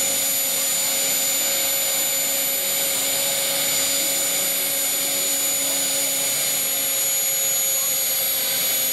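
Gazelle helicopter's Turbomeca Astazou turboshaft running steadily on the ground: a high, even turbine whine over a steady rushing hiss, with a lower hum beneath.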